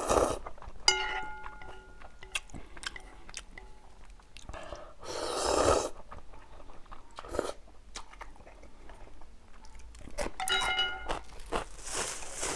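Close-miked eating: chewing and biting of food, with a few louder noisy stretches about five seconds in and near the end. A short ringing tone sounds twice, about a second in and again near the end.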